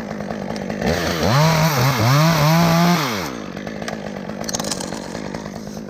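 Chainsaw idling, then throttled up for about two seconds, its pitch dipping twice as it bogs under load in the cut, before dropping back to idle.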